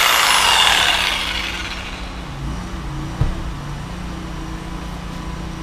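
A Bosch jigsaw's motor spinning down after being switched off, its whine falling in pitch and fading over the first second or two. A low steady hum then remains, with a single knock about three seconds in.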